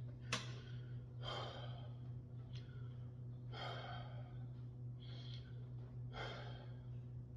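A man breathing heavily from the exertion of a heavy barbell bench press set: four deep breaths, about two and a half seconds apart. There is a short sharp click just after the start, over a steady low hum.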